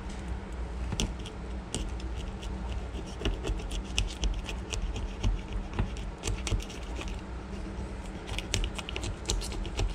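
Fillet knife sawing through a rock bass's scales and skin behind the gill plate: an uneven run of small crackling clicks and scratches.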